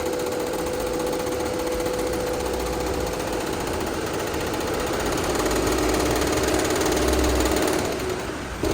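YunFu 6-head computerized embroidery machine running, its needles stitching in a steady, rapid mechanical chatter. The sound dips briefly near the end, then picks up again.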